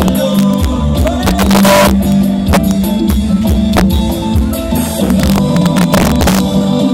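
A live band playing amplified music through a concert PA, with a steady drum-kit beat and a loud cymbal-like crash about a second and a half in.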